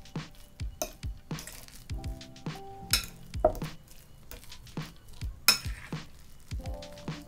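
Kitchen utensils knocking and clinking against cookware, a string of sharp knocks with short ringing, the loudest two about three and five and a half seconds in, over background music.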